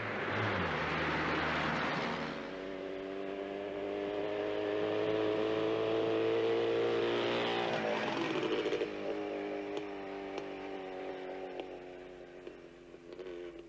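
A car driving past, then a JAWA motorcycle engine rising steadily in pitch as it approaches. It passes about eight seconds in and fades as it goes away.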